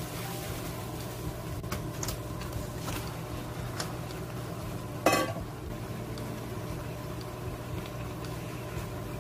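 Spatula knocking and scraping in a frying pan a few times, with one louder clatter about five seconds in, over a steady low hum.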